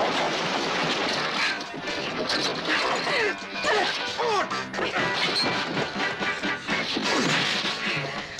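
Film fight sound effects: repeated crashes and blows as furniture, including a wooden lattice room divider, is knocked over, set against an energetic film score.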